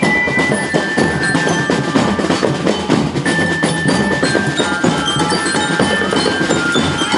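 Marching band playing: snare drums beating a steady rhythm, with glockenspiel notes ringing over them.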